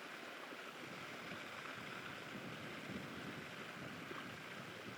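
Faint, steady rushing outdoor background noise with no distinct events.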